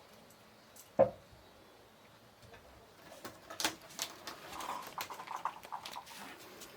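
A kitten playing: one thump about a second in, then a run of light pattering and clicks from its paws and claws.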